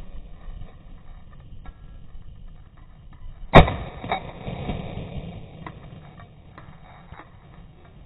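A single loud shotgun shot about three and a half seconds in, fired up at flying wood pigeons, its sound trailing off over about a second.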